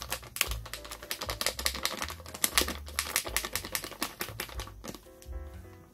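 Rapid crinkling and crackling of a plastic packet of coconut cream being handled and squeezed over a mug, a dense run of small clicks that thins out after about five seconds. Background music with held notes comes up near the end.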